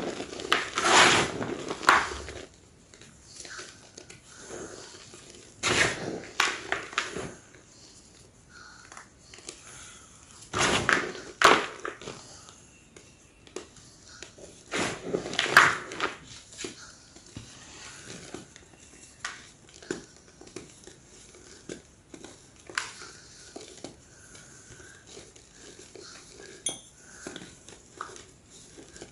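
Large slabs of gym chalk being crunched and crushed: loud crunches every few seconds in the first half, then quieter scattered crackles and small snaps.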